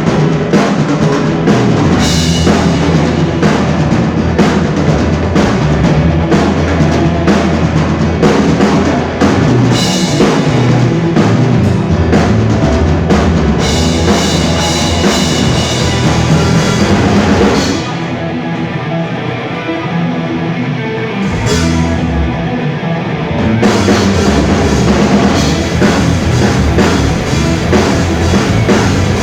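Rock band playing live, with drum kit, electric guitar and bass. About 18 seconds in, the drums and high end drop away for a quieter passage, and the full band comes back in about five seconds later.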